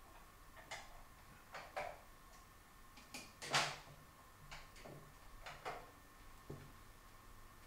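A scattering of brief, faint rustles and scrapes of people shifting their arms and clothing at a plastic table, the loudest about three and a half seconds in, over a faint steady whine.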